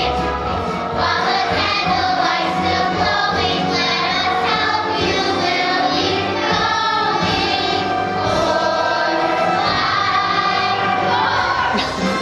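A group of young voices singing a musical-theatre number together over instrumental accompaniment.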